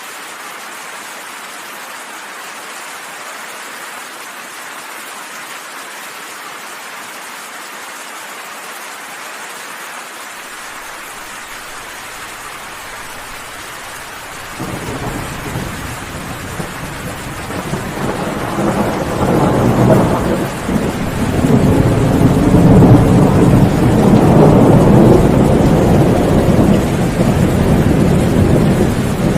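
Steady rain hissing, then about halfway through a long roll of thunder comes in low and grows, rumbling loudest about three-quarters of the way through and still going at the end.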